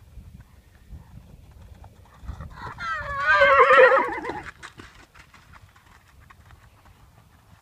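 A horse whinnies loudly for about two seconds, starting a little before halfway in; the call quavers and falls in pitch. Soft hoof thuds on the arena footing run underneath.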